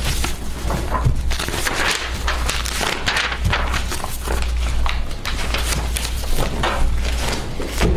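Sheets of paper and card folders rustling and being leafed through, with many short crackling strokes, over a steady low electrical hum.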